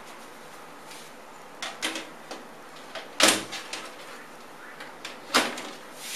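Side panel of a Corsair 300R PC case being slid on and pushed shut: a few light clicks, then a sharp clack about three seconds in and another about two seconds later.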